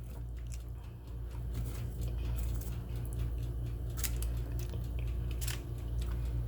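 A person chewing and biting into a crumbly cookie, with a few soft crisp clicks, over a steady low hum.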